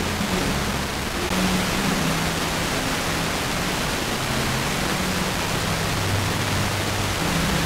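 FM radio tuned to a weak, distant station at 103.7 MHz: a loud steady hiss of receiver noise, with faint low music notes coming through it. The signal sits barely above the noise floor, received by aurora propagation.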